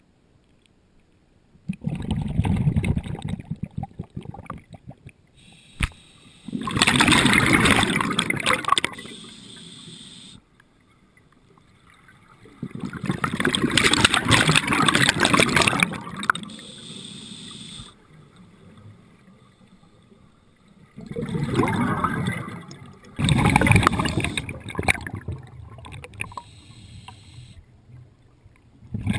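Scuba diver's exhaled bubbles rushing from the regulator underwater, in five bursts of two to three seconds each, with quieter bubbling and gurgling between breaths.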